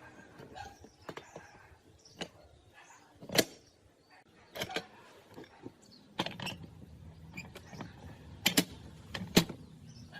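Metal parts of a hydraulic floor jack being handled, giving a few separate sharp clicks and knocks, with two loud ones close together near the end.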